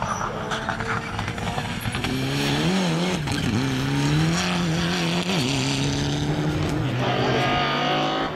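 Mitsubishi Lancer Evolution rally car's turbocharged four-cylinder engine driven hard. Its pitch dips and climbs several times about three seconds in, then holds steady at high revs.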